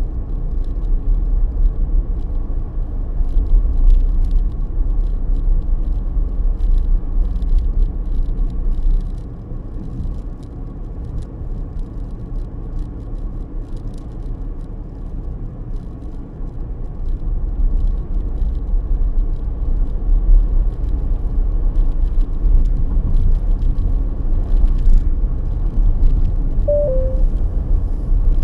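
Car's engine and tyre road noise heard inside the cabin while driving, a steady low rumble that eases for several seconds around the middle and then picks up again. A short two-note tone sounds near the end.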